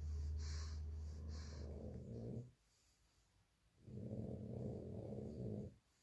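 A sleeping pug snoring: two long, rattling snores, the first ending about two and a half seconds in, the second starting about a second and a half later, with quiet breathing between. Loud snoring like this is typical of the pug's short, flat muzzle.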